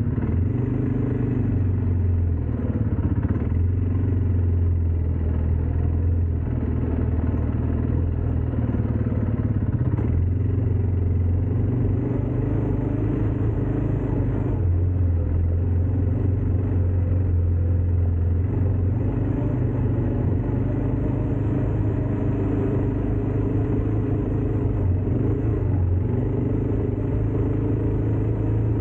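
ATV engine running steadily as it is ridden: a continuous low drone whose pitch shifts slightly now and then.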